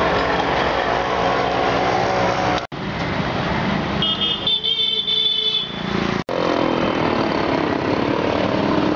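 Street traffic noise with vehicle engines running. A vehicle horn sounds for about a second and a half a little past the middle. The noise is broken twice by brief silent gaps.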